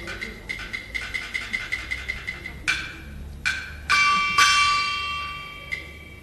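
Qinqiang opera percussion accompaniment: a quick run of sharp, high clapper-like strikes, about four or five a second, then a few heavier strokes. About four seconds in comes a ringing metal stroke that rings on and slowly fades.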